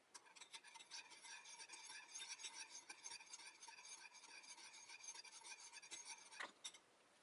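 A metal spoon stirring soy sauce and vinegar in a glass bowl, scraping quickly and continuously against the glass, which rings faintly. It ends with a few sharp taps of the spoon on the bowl near the end.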